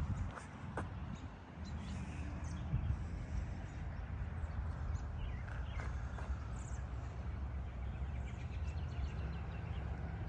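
Outdoor park ambience: birds chirping on and off over a steady low background rumble, with a couple of sharp clicks in the first second.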